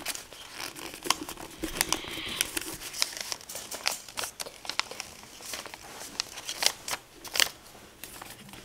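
A sheet of paper being folded and creased by hand: irregular crinkling with sharp little crackles and snaps as the folds are pressed down.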